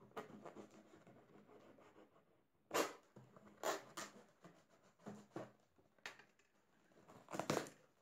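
Kitchen knife slicing through the packing tape on a cardboard box: a string of short ripping, scraping strokes about a second apart, the strongest about three seconds in and near the end, as the box is pulled open.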